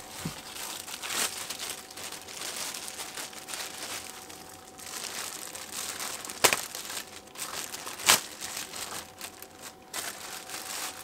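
Clear plastic packaging bag crinkling and rustling as a cordless power tool is unwrapped by hand. Two or three sharp clacks stand out, the loudest a little past the middle.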